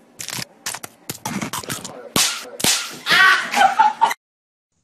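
A string of small sharp snaps from a Kit Kat bar being unwrapped and broken. Then two loud hand slaps about half a second apart, about two seconds in, followed by a voice crying out.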